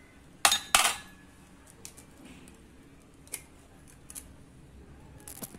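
An egg struck twice against the rim of a glass bowl to crack it: two sharp clicks close together about half a second in, then a few faint clicks as the shell is pulled apart.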